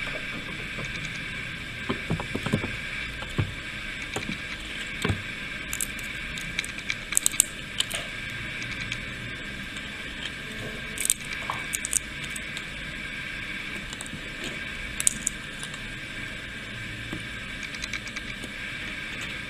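Eurasian red squirrel rummaging in a bowl of sunflower seeds and cracking their shells: scattered sharp clicks and rattles of seed husks, bunched at a few moments, over a steady hiss.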